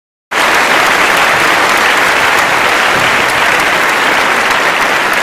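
Audience applauding: a dense, steady clapping that starts abruptly just after the start, out of dead silence.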